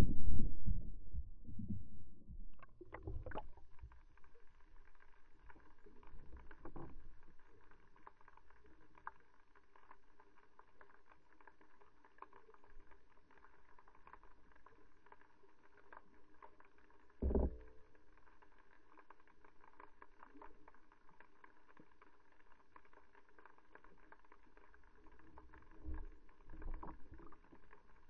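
Underwater sound through a camera's waterproof housing during spearfishing: the loud disturbance of a speargun shot and the struck fish dies away over the first two seconds. Then comes faint water noise with scattered small clicks, a dull knock about seventeen seconds in, and a few more knocks near the end.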